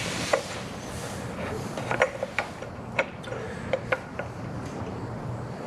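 Scattered light plastic clicks and knocks as a spill-free coolant funnel is plugged with its plunger and lifted out of the radiator filler neck, over a low hiss that is strongest in the first second.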